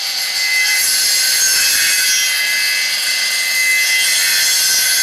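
Homemade copying machine's circular saw cutting a wooden propeller blank as its carriage follows a template, its electric motor running. A steady high whine and hiss of sawing with no breaks.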